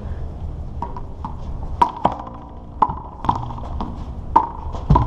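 Small rubber handball bouncing and being struck against concrete: an irregular run of sharp smacks, about two a second, each with a short ringing ping.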